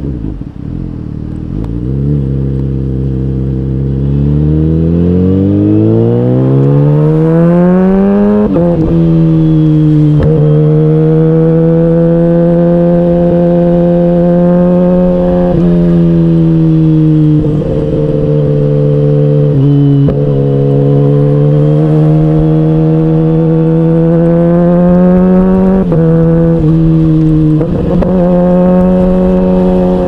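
Kawasaki Ninja H2's supercharged inline-four engine, heard from on the bike. It pulls hard with a steady rise in pitch over about six seconds, drops sharply at an upshift, then holds steady cruising revs broken by a few brief throttle dips.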